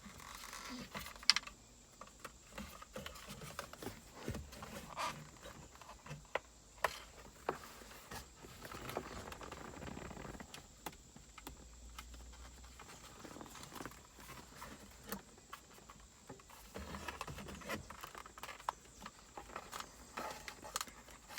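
Scattered clicks, taps and light knocks of hands working plastic dashboard trim loose, with one sharp click about a second in.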